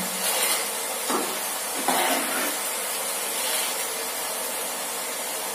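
Field beans (avarekalu) deep-frying in hot oil in a kadai, a steady sizzling hiss. This is the sound that tells the beans are cleanly fried and done.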